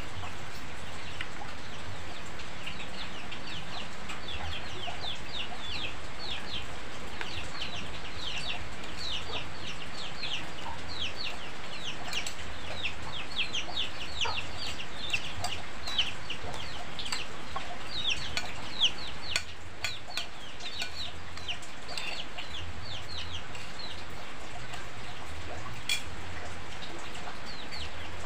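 Chicks peeping continuously, many short falling chirps overlapping one another. There are a few sharp clinks of spoons on plates, the loudest a little past the middle.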